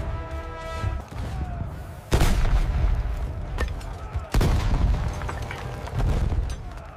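Two cannon shots about two seconds apart, each a sudden loud boom followed by a low rumble.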